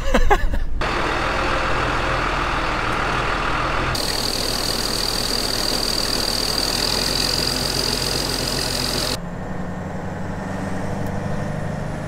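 Grain auger pouring grain into a truck's bin: a steady rushing of grain with a high, even whine over it. About nine seconds in it gives way to a truck engine running steadily, heard from the cab.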